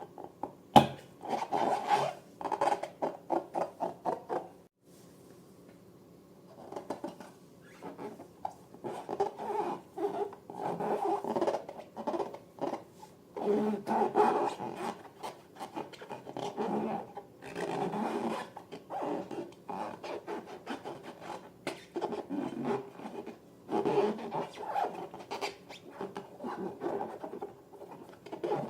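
Slime being squished and worked by hand: rapid runs of short sticky crackles and squelches in clusters, with a brief pause about five seconds in.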